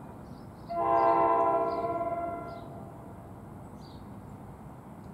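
NJ Transit train's multi-note chord horn, a K5LA-type, sounding one long blast of about two seconds that starts sharply about a second in and fades away. The train is not yet in sight.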